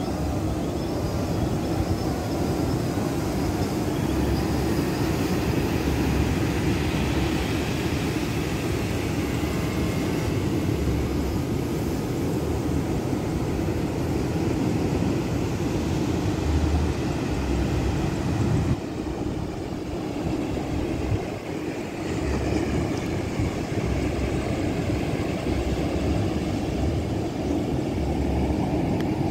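Steady roar of breaking surf with wind buffeting the microphone, and over it the faint, wavering whine of a DJI Phantom quadcopter's propellers as it flies out to sea. The sound dips briefly a little past halfway.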